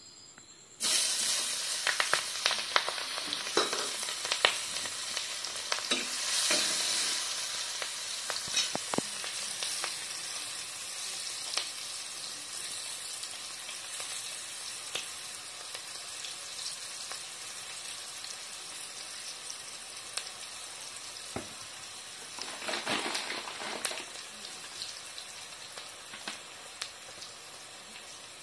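Sliced onions dropped into hot oil in a kadai, starting a sizzle about a second in, with sharp crackles and pops. The sizzle is loudest at first and slowly settles to a quieter steady fry, with a brief louder sizzle again about 22 seconds in.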